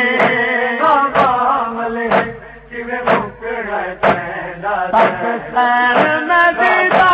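Male voices chanting a noha lament. A sharp, clap-like beat keeps time about once a second.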